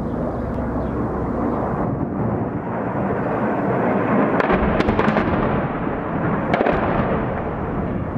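Barrel-bomb explosion heard from a distance: a long rolling rumble that swells, with a few sharp cracks over it about halfway through and again near six and a half seconds.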